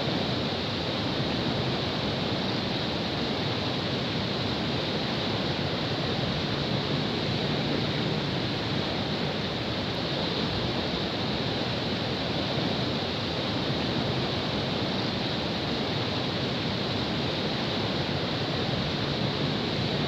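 Muddy canal water rushing and churning white through a culvert under a road bridge: a steady, unbroken rush of water.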